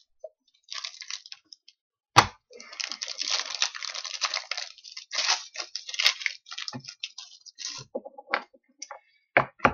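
Trading card packs and cards being handled: a dry rustling and crinkling that is thickest a couple of seconds in, with a few sharp clicks.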